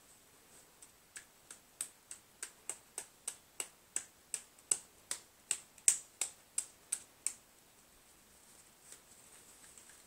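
A run of about twenty sharp little plastic clicks, roughly three a second, from a Play-Doh tub's lid being worked in a child's hands; they start about a second in and stop about seven seconds in.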